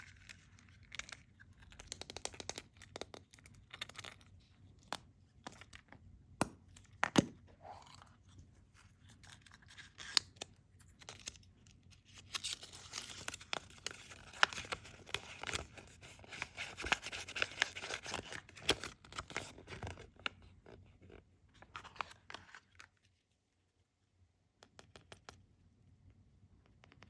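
Kinder Surprise chocolate eggs being unwrapped and opened by hand: foil and wrappers tearing and crinkling, with many sharp clicks and cracks.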